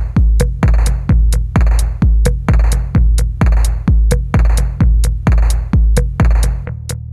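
Background music: an electronic track with a steady drum-machine beat, about two kicks a second with crisp hi-hat ticks; the kick drops out near the end.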